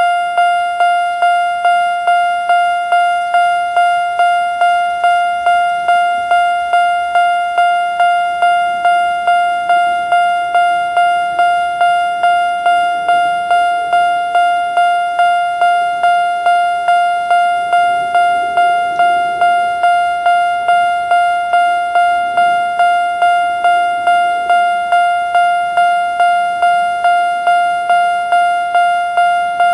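Japanese level-crossing electronic warning bell of the single-tone type, repeating one pitch at about two strikes a second. It is the alarm of an active crossing as a train approaches.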